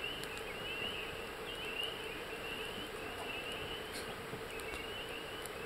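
Chorus of spring peepers: many short, rising peeps overlapping without a break.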